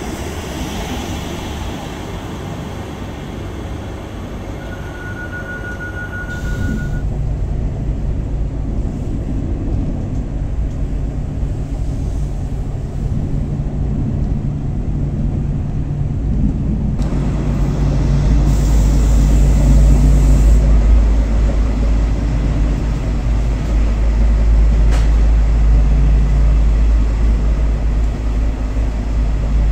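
Renfe passenger train: a steady low hum and rumble heard from inside the carriage, growing louder about 17 seconds in. Before that there is platform noise with a short steady beep about 5 seconds in, and a brief high hiss comes near 19 seconds.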